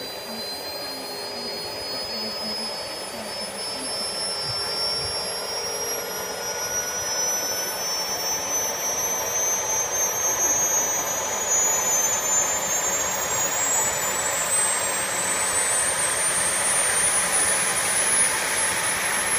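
Small turbojet engine spooling up: a high whine climbing steadily in pitch over a rushing noise that grows louder.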